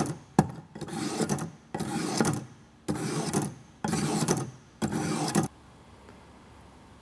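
Folding knife blade drawn down through the 325-grit steels of a Warthog V-style knife sharpener: six scraping strokes, about one a second, each starting sharply. The strokes stop about five and a half seconds in.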